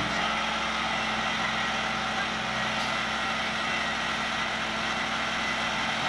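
Engine of an old crawler loader running steadily as it works a bucket of earth.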